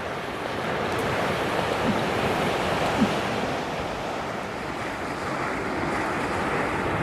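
Sea waves washing onto the shore in a steady wash of surf, swelling slightly near the end.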